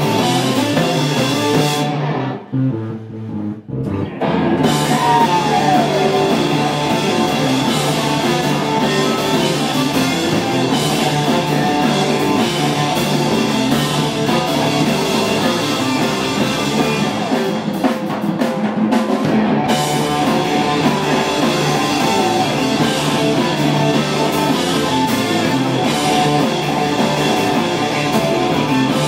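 Live rock band playing an instrumental passage on distorted electric guitars, bass guitar and a drum kit. The sound briefly thins and drops about two seconds in, then the full band comes back in.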